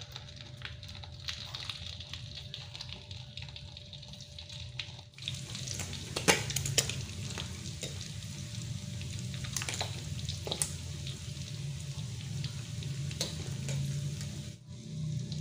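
Pieces of tongkol (mackerel tuna) sizzling as they fry in hot oil in a wok, louder from about five seconds in. A few sharp clicks of metal tongs against the pan as the pieces are turned over.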